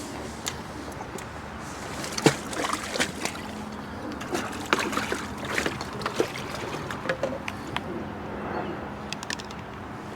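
Lake water sloshing and splashing, with irregular clicks and knocks of fishing tackle being handled, the sharpest knock about two seconds in.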